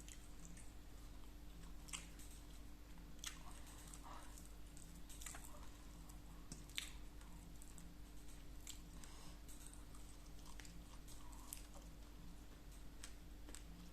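A person chewing food, with scattered faint mouth clicks and smacks, over a steady low hum.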